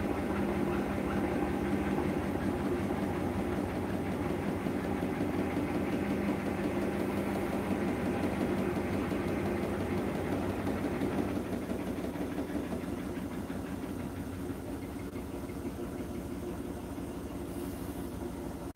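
Hotpoint NSWR843C front-loading washing machine running, its drum turning with a steady mechanical hum that eases off somewhat about two-thirds of the way through.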